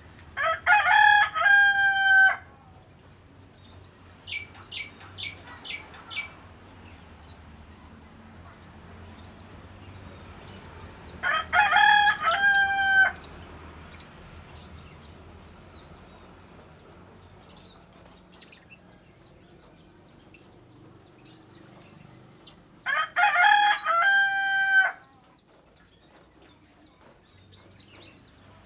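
A rooster crows three times, about ten seconds apart, each crow lasting about two seconds. Between the crows there are faint, high chirps from small birds.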